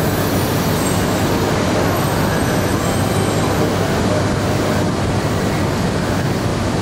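Steady Shinkansen platform ambience: a continuous low hum and rumble from trains standing at the platforms, with no sudden events.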